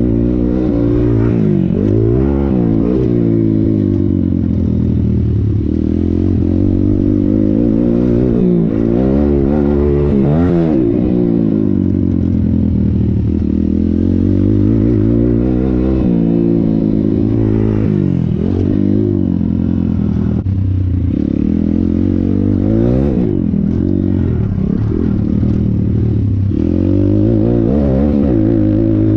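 Thumpstar 140cc pit bike's single-cylinder four-stroke engine being ridden hard, revving up and falling back over and over as the throttle is opened and shut around a dirt track, its pitch climbing and dropping every few seconds.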